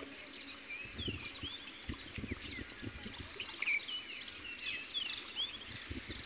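Small birds chirping over and over, with many short calls that swoop up and down in pitch, over a low rumble with a few dull thuds.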